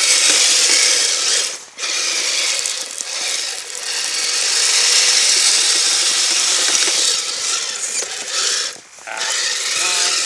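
Electric motor and gearbox of a Kyosho Blizzard FR radio-control snowcat driving its tracks: a busy, high mechanical whir and clatter that cuts out briefly twice, near 2 seconds in and again near 9 seconds, as the throttle is let off.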